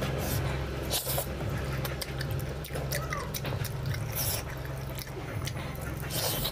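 Close-up eating sounds of a man biting and chewing a curried chicken leg: wet smacking, chewing and tearing of meat with scattered sharp mouth clicks. A steady low hum runs underneath.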